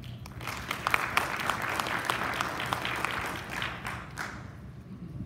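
Audience applauding. The clapping starts just after the opening and dies away about four and a half seconds in.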